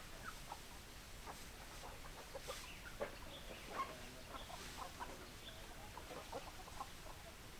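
Hens clucking: many short, overlapping clucks throughout, with a couple of louder calls about three to four seconds in.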